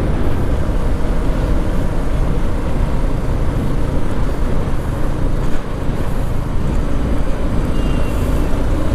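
Yamaha R15 V4 motorcycle's engine running steadily at road speed, mixed with wind and road noise.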